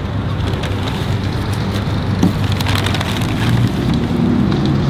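Brown paper fast-food bag crinkling and rustling as fries are taken out of it by hand, with scattered small crackles, over a steady low rumble.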